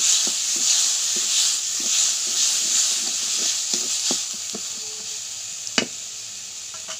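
Onion-and-spice masala sizzling in oil in a metal kadai while a spatula stirs and scrapes it against the pan, frying the ground spices. The sizzle thins out over the second half, and there is one sharp tap of the spatula on the pan near the end.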